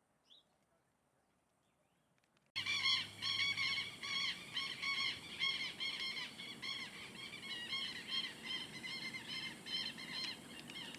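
A bird calling: a fast series of repeated, rising-and-falling whistled notes, about three a second, starting abruptly after a couple of seconds of near quiet and keeping on steadily. A single faint chirp comes right at the start.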